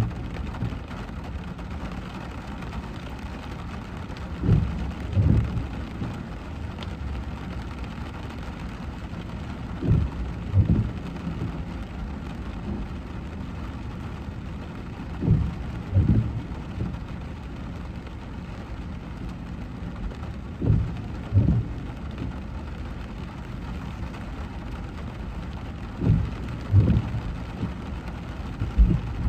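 Rain on a moving car, with a steady hiss of rain and road noise. A pair of low thumps comes about every five and a half seconds: the windscreen wipers sweeping on their intermittent setting.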